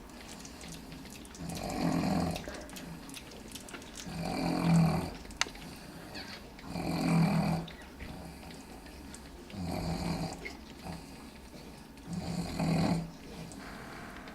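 A sleeping pet snoring in a slow, regular rhythm, five snores about two and a half seconds apart, each lasting about a second.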